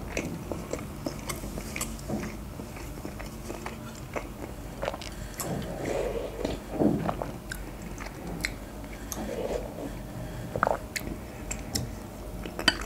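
Close-up eating sounds: a mouthful of homemade burger being chewed, then chicken soup sipped from a metal spoon, with small scattered clicks.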